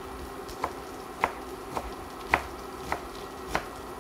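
A kitchen knife chopping purslane stems on a cutting board: six separate chops, roughly one every half second to second.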